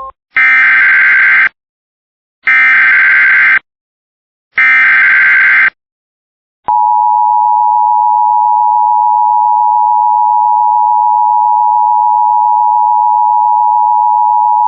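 Emergency Alert System header for a National Weather Service blizzard warning: three one-second bursts of screechy SAME digital data tones, then about eight seconds of the steady two-tone EAS attention signal.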